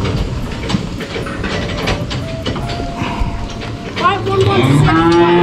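Light knocks and rattles from cattle in a steel pen, then a cow starts a long, loud moo about four seconds in.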